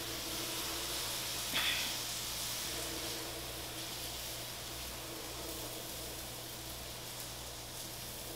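Waffle batter sizzling with a steady hiss as it is poured onto the hot plates of an electric waffle maker, over a low steady hum.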